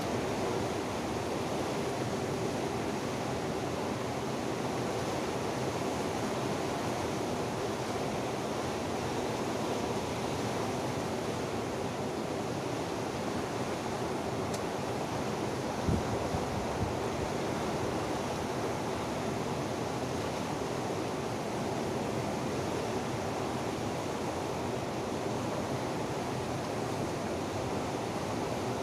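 Steady rushing of a fast, muddy river running over rocks and rapids.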